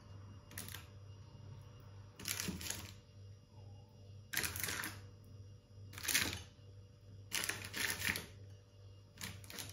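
Baking parchment crinkling in about half a dozen short bursts as tomato slices are pressed in among sliced squash in a lined baking tray, over a faint low hum.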